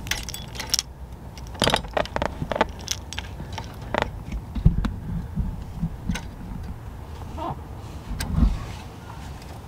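Keys jingling on a key ring at the steering column, mixed with scattered clicks and rattles of hands working a wiring plug under the dash, and a few dull knocks.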